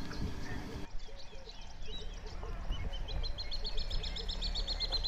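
Wild birds calling, with a long, fast trill of evenly repeated notes from about three seconds in that slowly falls in pitch, over a low rumble.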